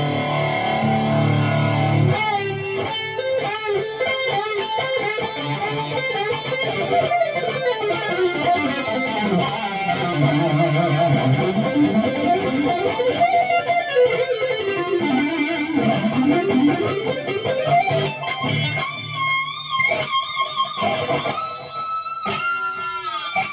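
ESP LTD EC-1000 electric guitar, played through an Axe-Fx amp modeller, improvising a fast shred lead. A held chord rings for about two seconds, then fast runs sweep up and down the neck. Near the end come held high notes with wide vibrato, broken by short stops.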